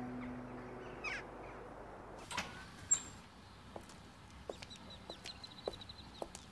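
Birds chirping and calling as an outdoor ambience, with the tail of a music cue fading out at the start. From the middle on there are faint footsteps, a few soft irregular knocks.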